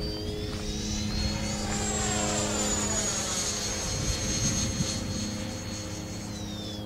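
The 80 mm electric ducted fan of a Freewing A-4 Skyhawk foam RC jet whining in flight, over a steady low hum. The high whine rises about two seconds in, holds, then drops near the end as the jet passes.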